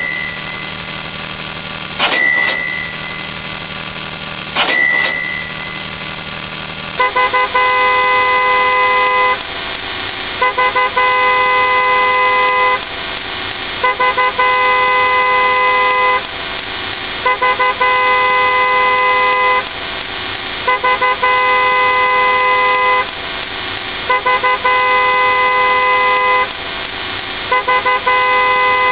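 A steady high whine and hum with a click and short beep every couple of seconds, then from about seven seconds in a car horn sound effect honking in long blasts of about two seconds each, repeated seven times with about a second between them.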